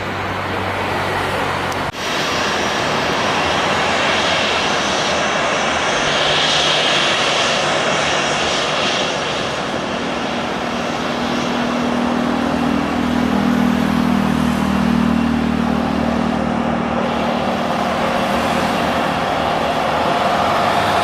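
Jet aircraft engines running, a steady loud rushing noise with a brighter hiss for a few seconds in the middle and a lower hum later on. A brief click and dropout about two seconds in.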